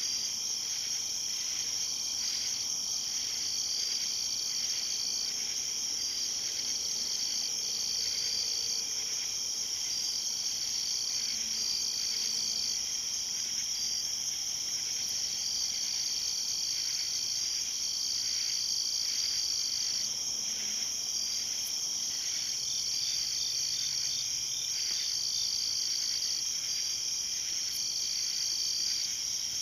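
Night chorus of crickets and other insects: a dense, steady high-pitched trilling, with one chirping voice that starts and stops every second or so, and a brief run of quick chirps about two thirds of the way through.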